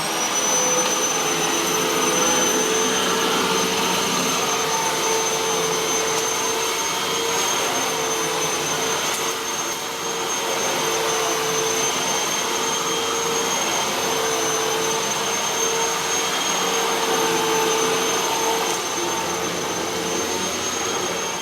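Hoover WindTunnel T-Series bagless upright vacuum cleaner switched on, its motor spinning up at the start, then running steadily with a high whine over a rush of air while vacuuming carpet.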